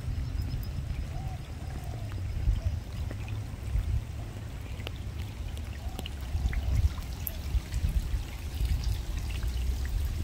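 Water trickling and dripping, with scattered small drops and ticks over a steady low rumble.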